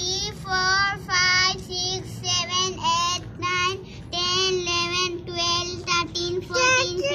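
A young girl singing in a high voice, a string of short held notes close to one pitch.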